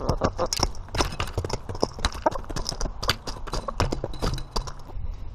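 Chickens pecking at the camera at close range: a fast, irregular run of sharp taps and knocks, several a second, thinning out near the end.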